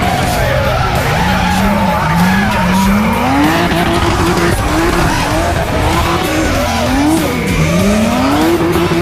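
BMW E30 drift car's engine revving up and down through a slide, holding high revs for stretches, with the rear tyres squealing as they spin and smoke.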